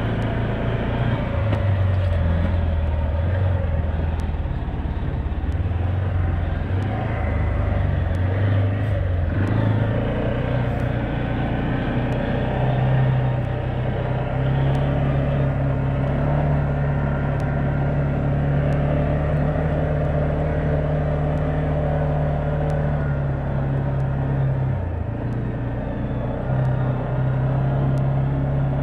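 A four-wheeler's engine running as it drives along a dirt trail. The engine note rises a little about halfway through, holds steady, and dips briefly near the end.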